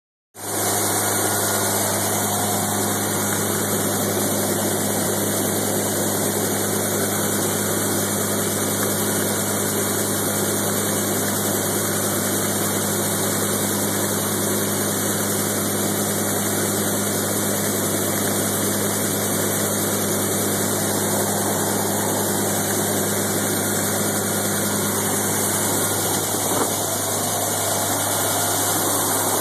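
Farm engine running steadily to drive a grain auger that is unloading shelled corn from a truck: an even, unchanging mechanical drone with a low hum.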